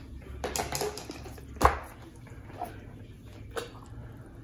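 Kitchen shears and a chef's knife being handled around a plastic cutting board and stone countertop: a few short clatters, then one sharp knock about a second and a half in, and a couple of lighter clicks afterwards.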